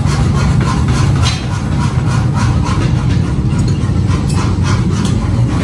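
Mechanical power hammer running with a heavy low drone, its ram pounding hot leaf-spring steel in quick, regular metal blows, several a second.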